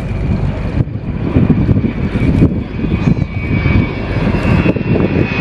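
Avro Vulcan bomber's four Olympus turbojets running in a flypast: a deep rumble with a steady high whine on top.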